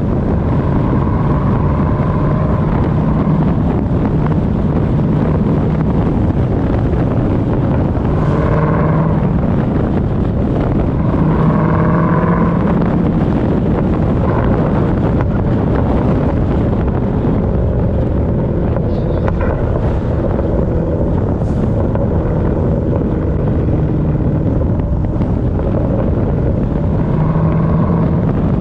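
2018 Jeep Trackhawk on the move with heavy wind noise on the microphone. The supercharged 6.2-litre V8 and road noise run steadily underneath, with a low engine tone that swells now and then.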